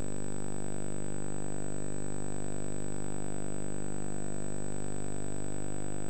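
Steady electrical hum with many even overtones and a thin high whine above it, unchanging throughout: the background noise of a VHS tape's playback where the programme itself has no sound.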